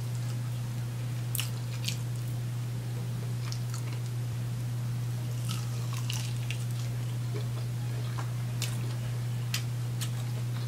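A chicken wing being bitten and chewed close to the microphone: scattered short wet clicks and crunches. Underneath runs a steady low hum, the loudest thing throughout.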